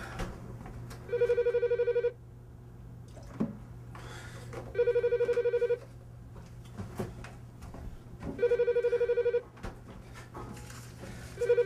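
Telephone ringing with an electronic trilling ring: rings of about a second each, every three and a half seconds, four in all, the last beginning near the end. Faint knocks and clatter in the gaps between rings.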